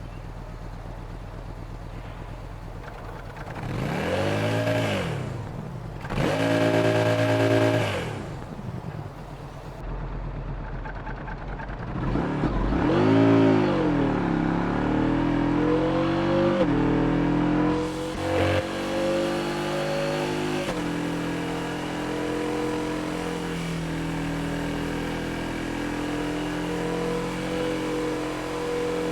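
Yamaha XSR700's parallel-twin engine with the catalytic converter removed, idling and then revved three times: a short blip, a rev held for about two seconds, and another blip. After that it is held at a steady, higher engine speed with small ups and downs.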